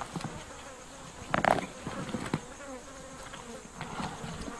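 Flies buzzing steadily around a carrion carcass. A brief louder noise comes about a second and a half in.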